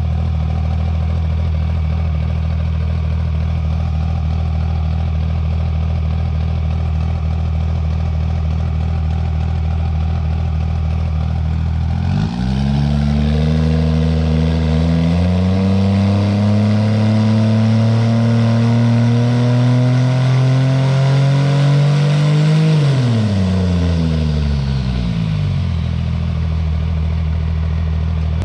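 Cummins diesel engine of a drag truck idling steadily, then revved up about twelve seconds in. Its pitch climbs slowly for around ten seconds before the throttle is let off and it falls back to idle.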